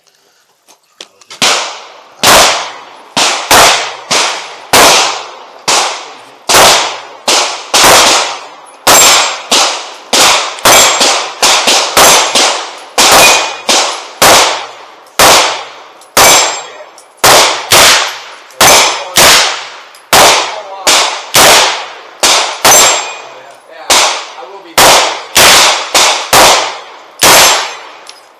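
Handgun fired in rapid, steady semi-automatic shots, about two a second, several dozen in all, each crack trailing off in a short echo. The shooting starts about a second and a half in.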